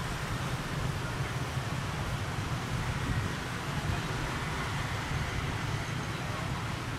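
Steady low rumble of airport ground noise: jet airliners' engines running on the ground, mixed with road traffic, with no single event standing out.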